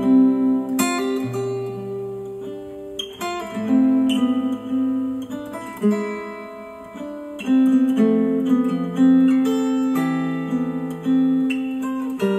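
Acoustic guitar instrumental played back through Dayton Audio B652 Air bookshelf speakers, driven by a Yamaha A-S301 integrated amplifier. Notes ring on and fade between new chords every second or two.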